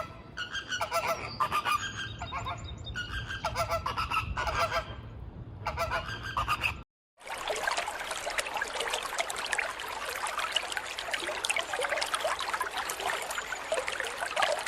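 Geese honking: repeated calls, then after a short break a dense flock of many geese calling at once.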